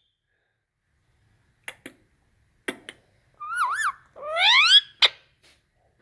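Ring-necked parakeet calling: a few short clicks, then about three and a half seconds in a short wavering whistle-like call, followed by a louder call that rises in pitch.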